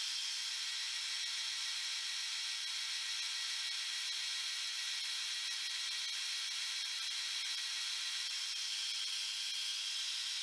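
Milling machine running a 3/16-inch carbide end mill through a slot in tough scrap steel: a steady, high whir with a hiss that does not change.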